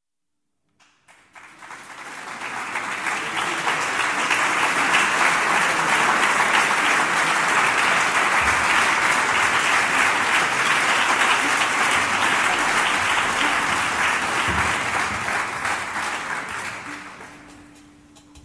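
Audience applauding: a few scattered claps about a second in swell quickly into full, steady applause, which dies away near the end.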